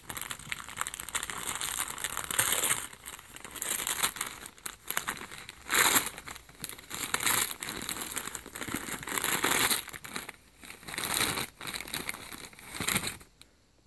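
Christmas wrapping paper being torn and crumpled by hand as a present is unwrapped, in irregular rustling bursts that stop shortly before the end.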